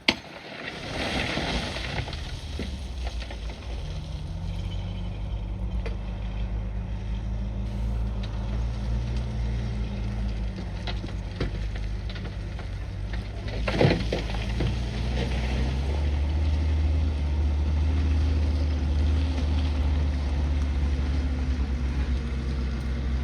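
A bulldozer's diesel engine running under load, its note rising about four seconds in and again later, with a single sharp knock partway through.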